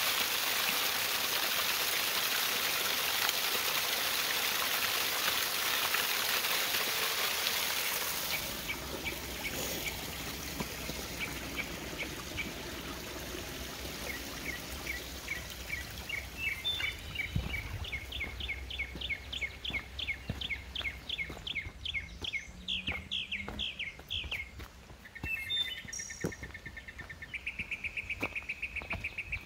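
Small waterfall splashing and trickling down a rock face, a steady rush that fades about eight seconds in. Then songbirds singing: repeated chirps, a long series of rising notes, and near the end a fast, even trill.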